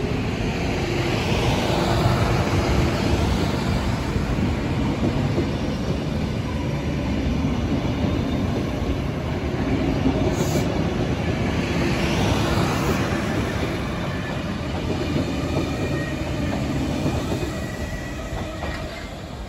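Sydney Trains K-set double-deck electric train pulling out, its carriages rolling past with steady rumble and wheel clatter on the rails. The sound fades near the end as the train draws away.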